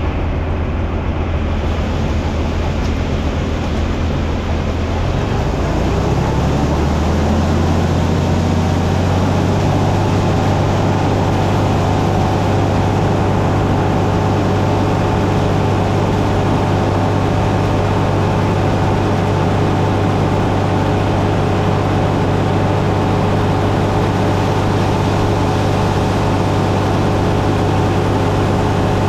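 A large engine running steadily. About five seconds in, its speed rises, and it then holds at the higher speed.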